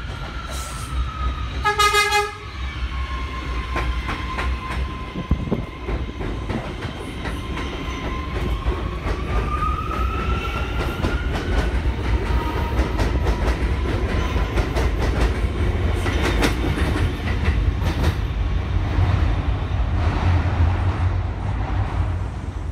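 R179 subway train entering the station and running past, giving one short horn blast about two seconds in. Its propulsion motors whine, dropping in pitch early on and rising again as it speeds up, over the low rumble of the cars and the steady clicking of the wheels over rail joints.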